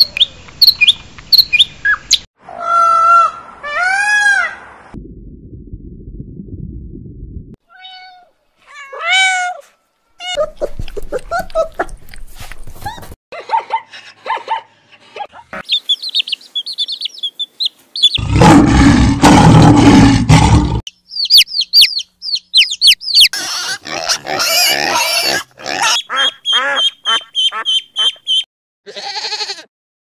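A string of short recordings of different bird calls and animal cries, changing abruptly every few seconds: whistled and gliding calls, rapid chirping and twittering, and one loud, harsh cry about 18 seconds in that lasts about three seconds.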